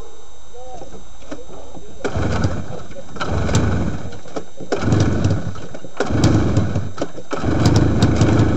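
Two-stroke snowmobile engine being started after a new carburettor needle and seat have gone in to cure flooding. About two seconds in it bursts into life in three short spells, each cutting out after a second or two, then catches and keeps running with a popping beat from about seven seconds in.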